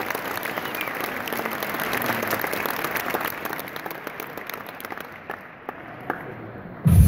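Audience applauding, the clapping thinning out about five seconds in. Near the end, loud music with a heavy bass starts suddenly.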